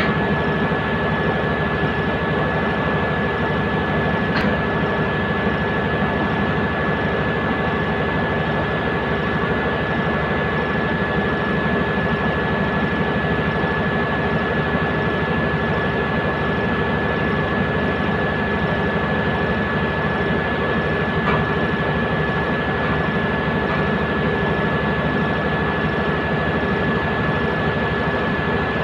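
Komatsu D155 bulldozer's diesel engine running steadily at a constant pitch, with a steady high whine over it.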